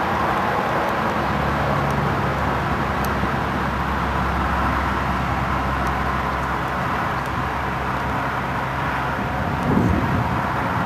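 Steady outdoor background noise with a low engine hum underneath, the hum fading out near the end as a louder low rumble sets in.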